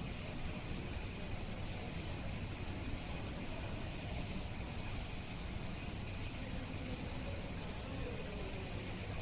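Steady, even background noise like a hiss or hum, with no distinct sounds standing out.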